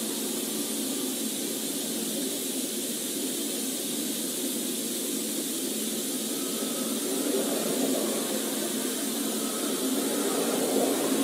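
Steady vehicle noise with a constant hiss inside a police patrol car, growing slightly louder near the end.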